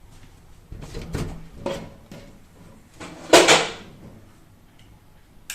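An interior door being handled: a few knocks, then a louder scraping rush about three seconds in, and a sharp click near the end.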